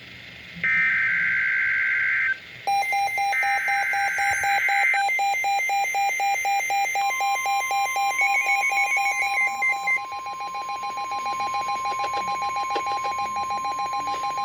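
Emergency Alert System tones: two harsh, warbling data bursts of the alert header, overlapped from about three seconds in by a rapidly pulsing alarm beep. About seven seconds in, a steady long alert tone begins and holds.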